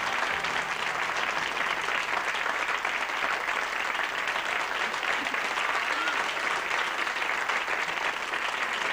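Studio audience applauding steadily at the end of a song, with the last held note of the band dying away about a second in.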